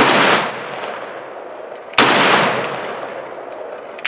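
.357 Magnum revolver fired twice, about two seconds apart, each shot trailing off in a long rolling echo. A smaller sharp click comes near the end.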